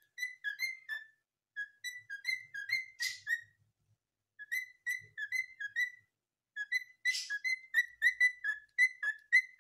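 A cockatiel whistling its song: phrases of short chirped notes, about four a second, with short pauses between phrases and two brief hissy bursts among the notes.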